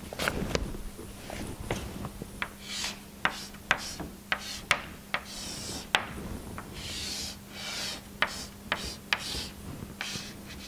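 Chalk drawing on a chalkboard: a run of sharp, irregular taps with short scratchy strokes between them, over a faint steady hum.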